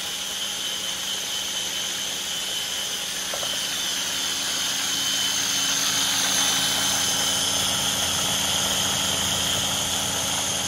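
Mini-prep food processor motor running steadily, whirring as it blends Caesar dressing while olive oil drips in through the holes in its lid to emulsify. It gets a little louder about halfway through.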